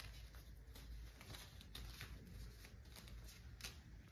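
Near silence with faint scattered scratches and rustles, a kitten's paws scrabbling on a mat.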